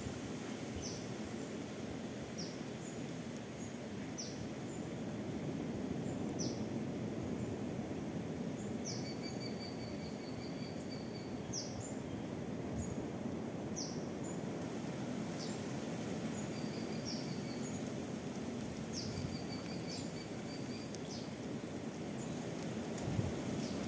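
Outdoor ambience: a steady rushing background with a bird calling over it, short high notes that fall in pitch, repeated every second or two, and a few quick trills.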